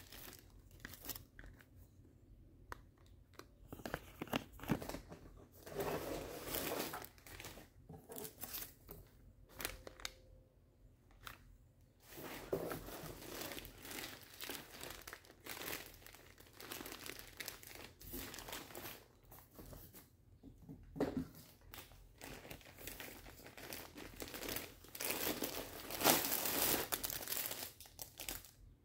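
Packaging crinkling and rustling as it is handled and opened by hand, in irregular spells with some tearing, loudest near the end.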